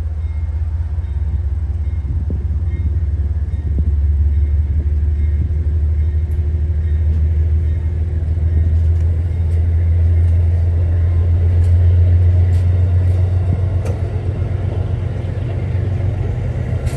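A train's diesel locomotive rumbling steadily, swelling to its loudest about twelve seconds in, with faint ticks in the second half.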